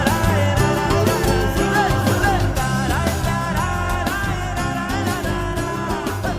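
Music: an instrumental passage of a Konkani song, a gliding melody over a steady bass beat, easing slightly in loudness.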